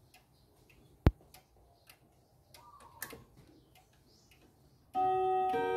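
Fontenoy three-train pendulum wall clock ticking faintly, with a sharp click about a second in. About five seconds in it begins its hourly chime: clear ringing notes struck one after another, each ringing on over the next.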